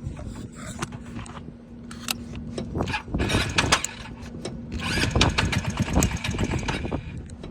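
Talon GSX 150R2 motorcycle engine being cranked on the starter during a hard start. It catches and sputters in two loud bursts of uneven firing, about three seconds in and again about five seconds in.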